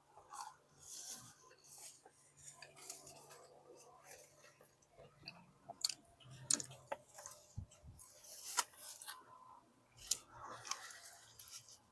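Crunching and chewing of crispy fried chicken, close up: irregular crisp bites and crackles between quieter chewing, over a faint steady low hum.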